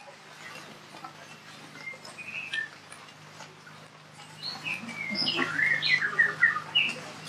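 Wild birds chirping and twittering, with a quick flurry of high chirps from about four and a half to seven seconds in, over a steady low hum.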